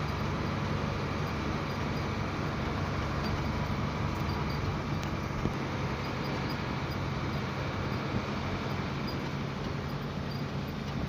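Isuzu FTR truck's diesel engine running steadily with road noise, heard from inside the moving cab.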